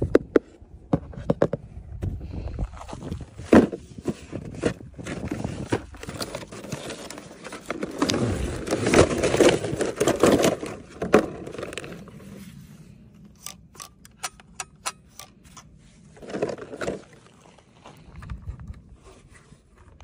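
A toy boat's cardboard box and clear plastic packaging tray being handled and opened: scraping, crackling plastic and sharp clicks. A longer stretch of rustling comes about halfway through, and a run of quick clicks follows.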